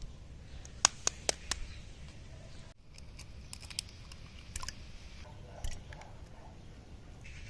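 Sharp taps and clicks: four in quick succession about a second in, then lighter scattered ones a few seconds later, over a low steady rumble.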